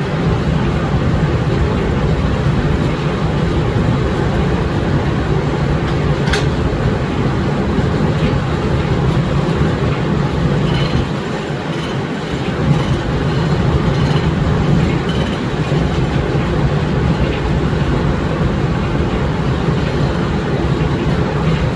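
Steam-engine-powered sawmill running: a loud, steady mechanical rumble, with a single sharp click about six seconds in.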